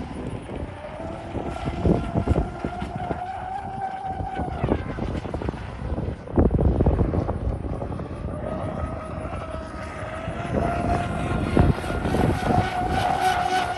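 Pro Boat Zelos 48 RC catamaran's twin brushless electric motors whining at full speed on an 8S battery pack. The pitch drops sharply about five seconds in and climbs again near the end. Gusts of wind buffet the microphone.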